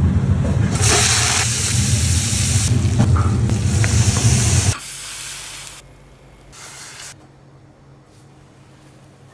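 Lobster pieces sizzling and hissing loudly in a hot steel pot, over a steady low hum. About five seconds in the sound drops sharply to a faint hiss with one brief flare of sizzling.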